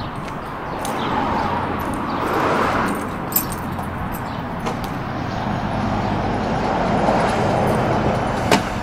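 Outdoor road traffic: a motor vehicle's engine running with a steady low hum and a noise that swells twice as traffic goes by, with a few sharp clicks over it.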